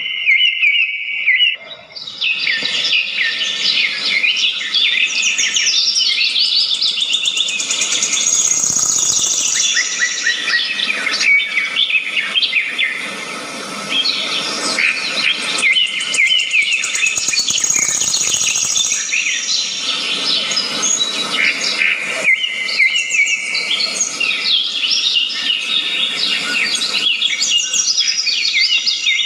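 Many birds chirping at once: a dense run of quick, overlapping high calls, briefly dropping out about two seconds in.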